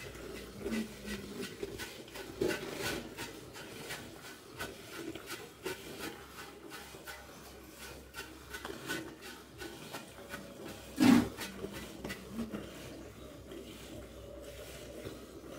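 Hand-milking a water buffalo: rhythmic squirts of milk rasping into a steel pail. One louder short sound comes about eleven seconds in.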